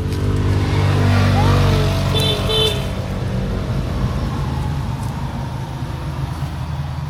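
A motor vehicle driving past close by on the road, its engine loudest about a second or two in and then fading to a steady rumble. A short high horn toot sounds about two and a half seconds in.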